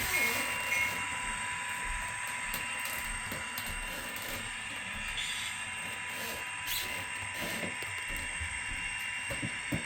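Model train running on a layout's track: a steady electric hum with a few constant tones and faint clicking from the wheels.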